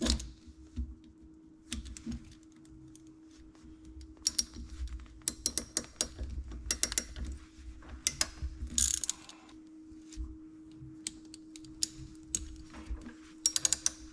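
Ratcheting crimping tool clicking in short runs as its jaws close on a cable lug for 10 mm² cable, over a steady hum.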